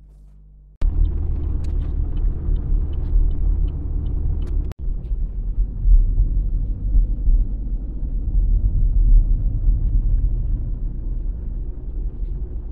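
Loud, steady low rumble that starts suddenly about a second in and drops out for a moment near five seconds.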